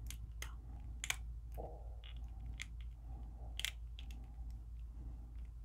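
Scattered small clicks and light crunches of a plastic S.H.Figuarts action figure being flexed and posed by hand, its joints and armour pieces shifting and knocking, over a low steady hum.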